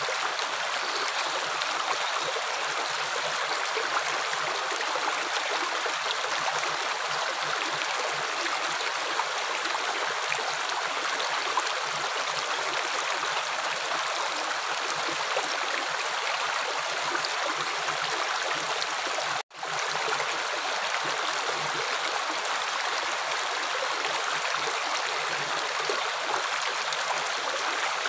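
Running water flowing steadily with an even rush, cut off for a split second about two-thirds of the way through before carrying on unchanged.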